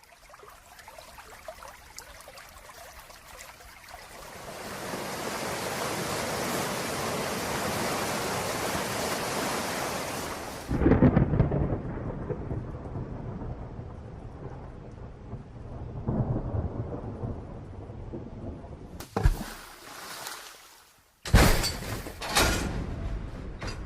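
Thunderstorm sound effect: rain hiss swelling to a steady downpour, then a sudden loud thunderclap about eleven seconds in with rolling rumbles after it. Near the end it cuts to a different effect of sharp, loud hits.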